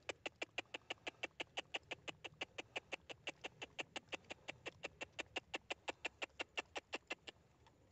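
An animal calling a fast, even series of short notes, about five a second, for about seven seconds, then stopping suddenly.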